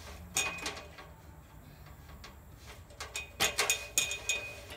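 Aluminium extension ladder clanking: a couple of metallic knocks with a short ring near the start, then a quick cluster of them about three seconds in.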